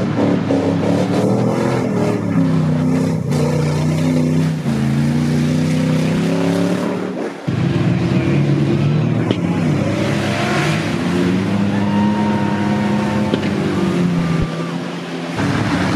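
Pickup truck engines revving hard under load as the trucks plow through deep mud, the pitch rising and falling with the throttle. The sound breaks off suddenly about halfway through and again near the end, where a different truck's engine takes over.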